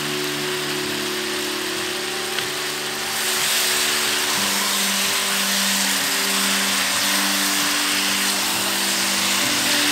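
Glazed chicken drumsticks sizzling in a frying pan, the sizzle getting louder about three seconds in as they are turned with chopsticks. Soft background music with long held notes plays underneath.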